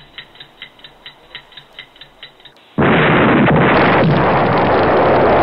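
A countdown timer ticking quickly, about five ticks a second, then, just under three seconds in, a sudden loud explosion whose rush goes on steadily as the fireball burns.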